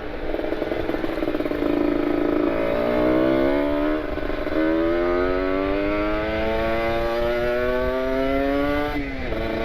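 Kawasaki Ninja RR 150's two-stroke single with an R9 Carbon aftermarket exhaust, accelerating hard. The revs climb, dip and restart lower about four seconds in as it shifts up, then rise steadily through a long pull, and fall off sharply near the end as the throttle closes.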